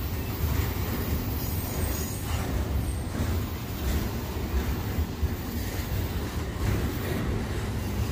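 Double-stack intermodal freight train of container well cars rolling past slowly, its wheels giving a steady low rumble on the rails.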